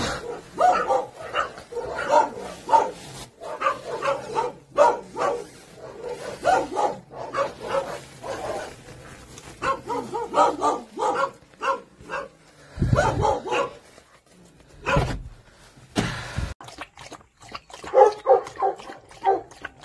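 A dog barking in many short, repeated calls, with a few low thumps in the middle.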